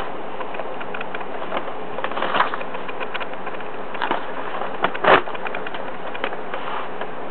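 Pages of a soft-cover paper manual being handled and turned, with short rustles and clicks, the loudest about two and a half and five seconds in, over a steady background hiss.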